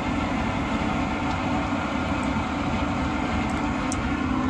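Steady machine rumble with a constant low hum, and a few faint light clicks of small metal tool bits being handled.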